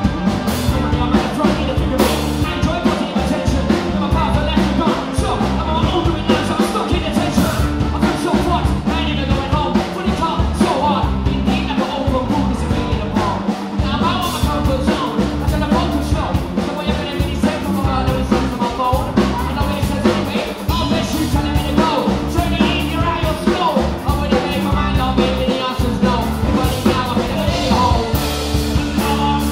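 Live rock band playing: electric guitars, bass and a drum kit keeping a steady beat, with a man singing lead vocals over the top.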